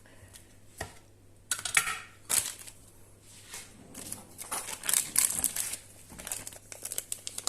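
A knife cutting a lump off a block of wax-coated cheese on a chopping board: irregular clicks, taps and scraping crackles.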